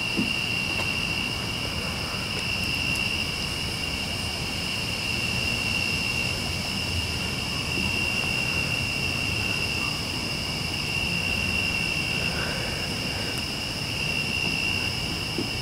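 A chorus of night insects singing steadily at a high pitch, with a low, even rumble underneath.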